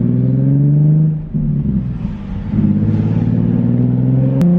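Nissan 370Z's 3.7-litre V6 through a Tomei Expreme Ti titanium exhaust, pulling under acceleration. The engine note rises, falls away about a second in, then climbs again and jumps up in pitch with a click near the end.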